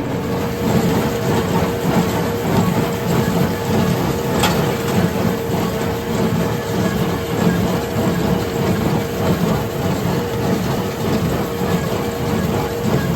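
Farmall 75C tractor running and powering a Massey Ferguson 1840 in-line small square baler as it bales straw, the machinery thumping in a steady, regular rhythm over a constant hum. One sharp click stands out about four seconds in.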